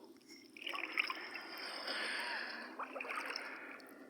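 Sea water splashing and sloshing in surges, starting about half a second in and easing off near the end, with a few small clicks.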